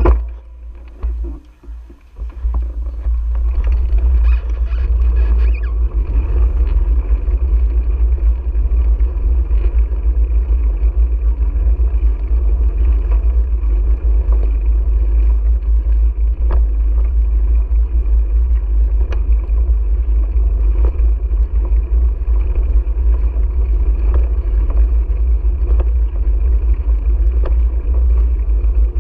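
Steady low wind rumble on a GoPro action camera's microphone while riding a bicycle along pavement, building up about two seconds in, with a few light ticks and rattles.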